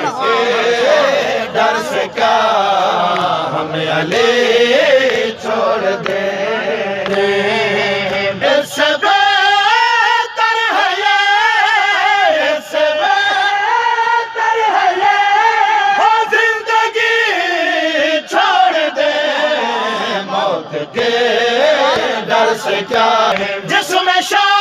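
Men chanting a nooha, a Shia lament, in a loud sung line, with sharp slaps of mourners' hands striking their chests (matam) heard through it.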